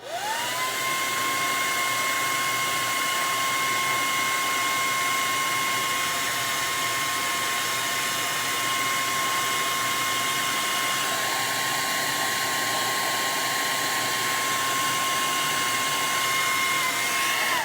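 Handheld hair dryer running on a steady setting: a loud rush of air with a steady motor whine that rises as it switches on at the start and drops away as it is switched off at the end.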